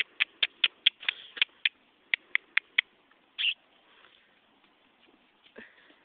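Rapid tongue clicks, about four a second for nearly three seconds, the clucking used to drive a horse on, then one short sharper sound.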